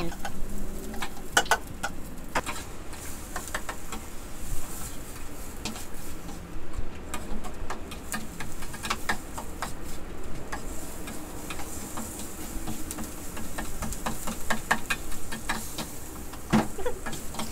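Utensil scraping and clicking irregularly against a stainless steel pan as chopped onion and garlic are stirred, over a faint sizzle of them sautéing in butter.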